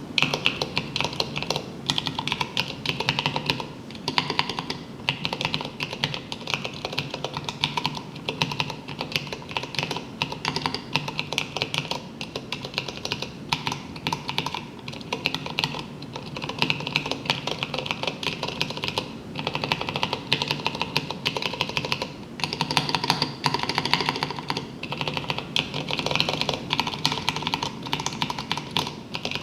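Continuous fast typing on a Rama M10-A mechanical keyboard with Cherry MX Clear switches and tall SA profile keycaps, many quick clacks a second with a few brief pauses.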